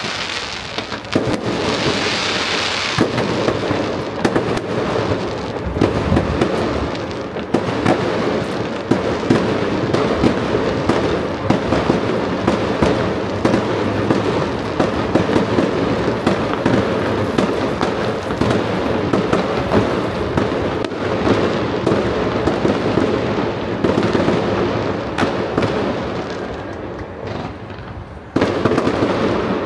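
Fireworks display: a dense, continuous barrage of crackling and popping shell bursts. It thins out shortly before the end, then breaks in again suddenly and loudly.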